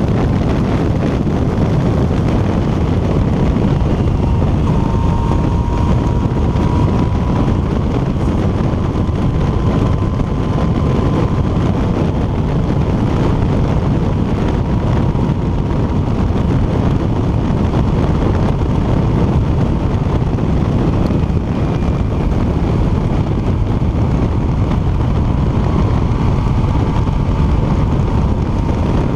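Yamaha MT-09 motorcycle's three-cylinder engine running at a steady cruise, mixed with heavy wind rush over the microphone.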